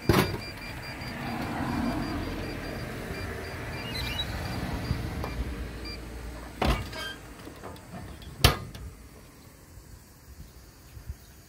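Japanese drinks vending machine dispensing a can: a sharp button click, then the vending mechanism whirring for several seconds with a faint on-off beeping, then two sharp knocks of the can and the pick-up tray flap as the can is taken out, the second the loudest.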